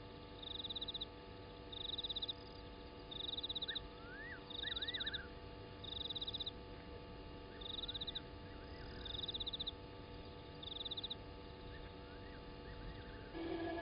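Night-time animal calls: a high, pulsed chirp about half a second long, repeated roughly once a second, over a faint steady hum. A few fainter whistled notes rise and fall around the middle and near the end.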